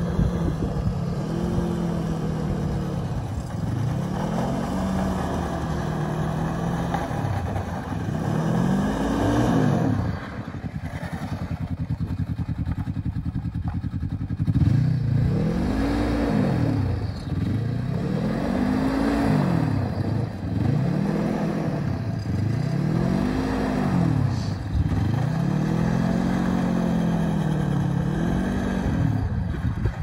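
Yamaha snowmobile engine running as the sled turns circles, its note rising and falling again and again, every second or two.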